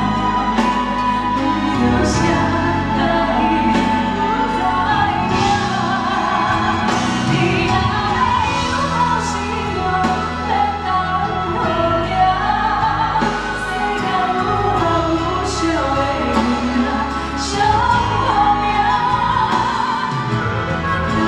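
Two women singing a Taiwanese Hokkien ballad as a live duet over backing music, heard through a concert sound system.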